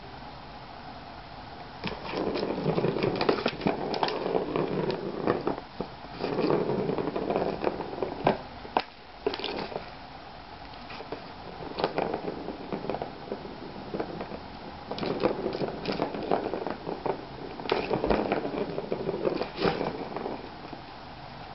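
Kitten playing in a Turbo Scratcher cat toy, its paws scraping and knocking on the corrugated-cardboard pad and plastic track. The scratching and rattling come in two spells, each a few seconds long, with sharp knocks mixed in.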